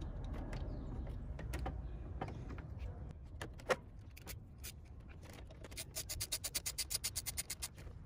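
Hand work on a coolant hose and thermostat housing in an engine bay: scattered clicks and knocks, then a quick run of metallic clicks, about ten a second, for roughly two seconds near the end.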